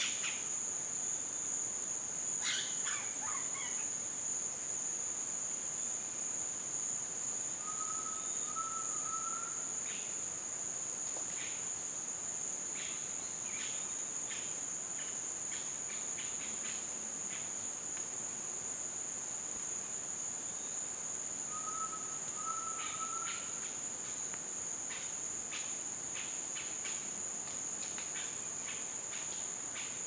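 Steady high-pitched insect drone, with faint short rising whistles twice and scattered brief high chirps in the second half.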